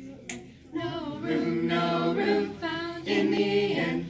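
A small choir of young and adult voices singing a cappella, starting about a second in. Just before they start there is a single sharp finger snap.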